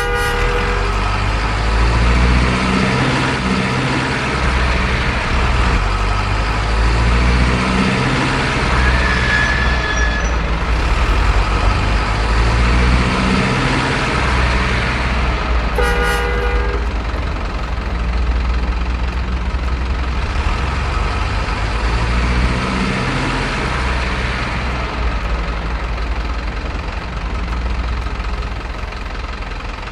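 Heavy truck diesel engines running with a loud, continuous low rumble that swells and eases. A short horn toot sounds about halfway through.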